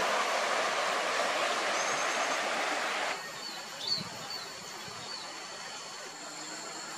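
A steady rushing noise that cuts off abruptly about three seconds in. It leaves a quieter outdoor background with a faint high whine, a few short high chirps and one soft thump about four seconds in.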